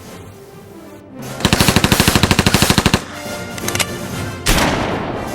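A burst of rapid automatic fire, about fifteen shots a second for a second and a half, over background music. About four and a half seconds in there is a sudden loud crash-like hit that fades out.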